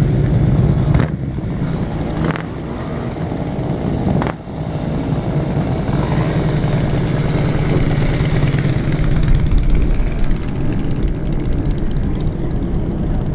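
Classic Japanese motorcycles riding past with their engines running loud and steady. The sound dips sharply for a moment a few times in the first five seconds.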